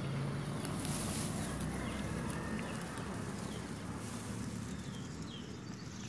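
Outdoor field ambience: a steady low rumble, with a few faint, short bird chirps scattered through it.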